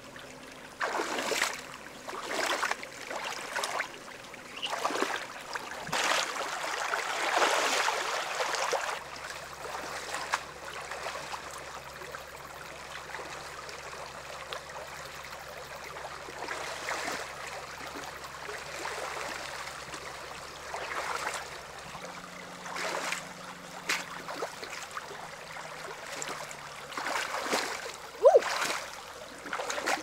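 Shallow river water running and trickling, with louder sloshing bursts now and then, most of them in the first ten seconds, and one sharp knock near the end.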